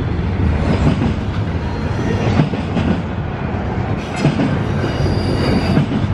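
Double-stack container train's well cars rolling past: a steady rumble of steel wheels on rail with clacks as the wheels cross rail joints, and a thin high wheel squeal near the end.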